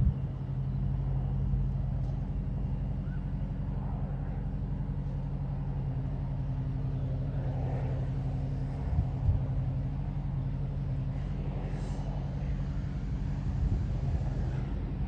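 Steady low engine drone with an even, unchanging pitch and a light noise of air over it.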